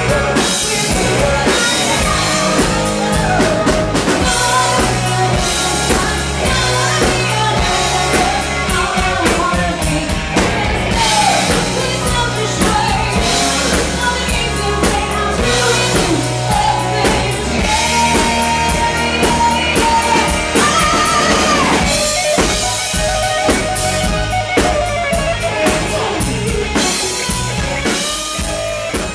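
A live rock band playing loudly on drum kit, electric guitars and bass, with a woman singing into a microphone over it at times.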